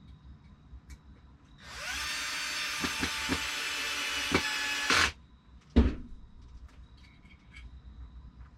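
Power drill spinning up and driving a wood screw for about three seconds, then stopping abruptly, followed by a single thump.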